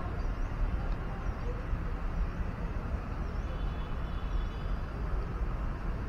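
Steady outdoor background noise, mostly a low irregular rumble, with faint high chirps over it.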